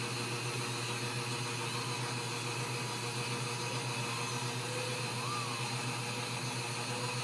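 Steady low hum with even hiss over it, a constant room drone from a machine or appliance. A faint, short rising-and-falling squeak comes about five seconds in.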